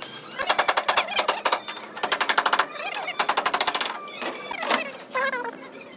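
Rapid, evenly spaced mechanical tapping in three short bursts of about a second each, with short gaps between.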